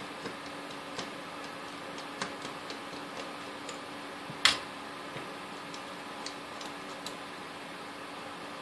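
Scattered light metallic clicks and taps as a screwdriver works inside a vintage stand mixer's metal motor housing, with one sharper click about four and a half seconds in, over a faint steady hum.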